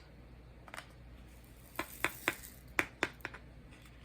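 About seven short, sharp clicks or taps at irregular spacing, a little louder from about halfway in.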